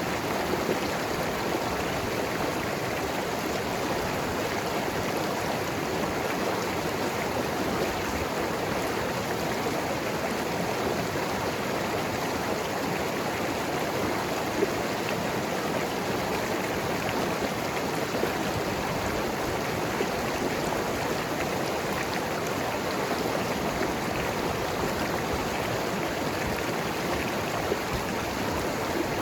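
Mountain river flowing and gurgling over rocks, a steady rush of water.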